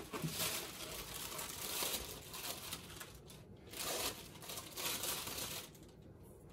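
Plastic packing bag crinkling and rustling as a statue base panel is pulled out of its foam packing tray, in several swells, stopping shortly before the end.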